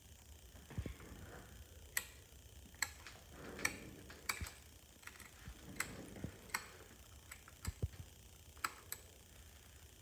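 Faint, irregular metallic clicks and ticks of a hand tool against the latch needles of a circular sock machine's cylinder as stitches are worked by hand, with a couple of soft knocks.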